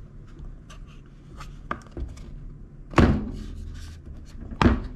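Plastic air filter cover of a Ryobi RY253SS string trimmer being worked onto the carburetor: light plastic taps and ticks, then two sharper knocks, about three seconds in and near the end, the last as the cover snaps into place.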